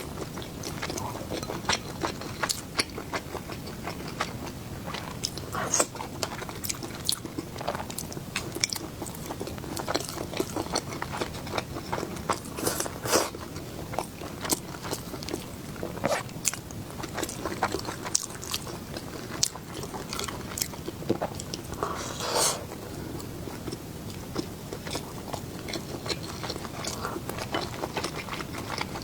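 A person chewing and biting food, with a steady run of small wet clicks and a few louder crunches spread through.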